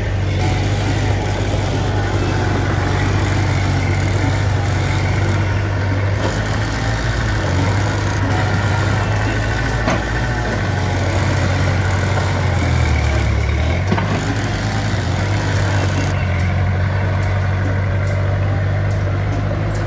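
Mitsubishi BD2F bulldozer's diesel engine running steadily while working, its pitch dipping briefly about two-thirds of the way through and then coming back up.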